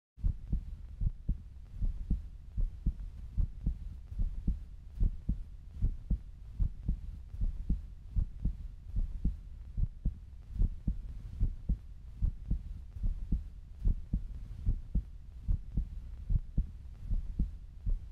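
Ford Mustang GT's 5.0 V8 idling: a low, steady exhaust rumble broken by uneven pulses about two to three times a second.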